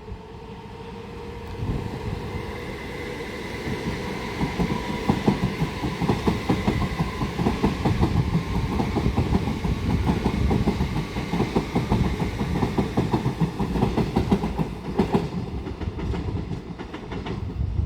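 A pair of Class 375 Electrostar electric multiple units passing through at speed: the sound builds as the train arrives, then a long run of rapid wheel clicks over the rail joints rides over a rumble and a steady whine, easing off near the end.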